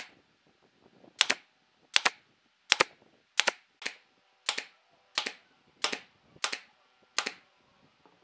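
Nail gun firing about a dozen sharp shots, roughly one every two-thirds of a second, driving nails through thin bent wood strips into a wooden disc.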